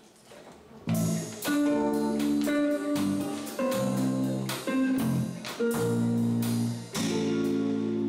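Acoustic and hollow-body electric guitars playing the slow chordal introduction of a jazz ballad, starting about a second in with a run of strummed chords.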